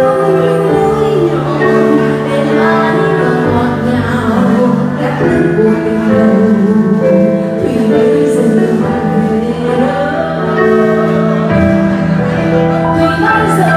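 A woman singing live into a microphone over instrumental accompaniment, amplified through the venue's sound system.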